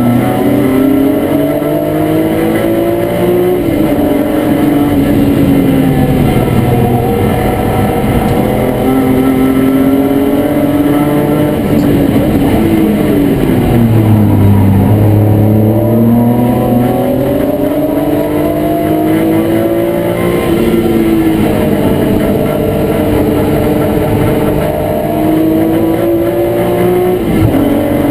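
BMW E36 M3 straight-six race engine heard from inside the stripped cabin under hard driving: the engine note climbs as the car accelerates through the gears and falls back on lifts and downshifts, with a deep drop and a stretch at low revs about halfway through, under steady road and wind noise.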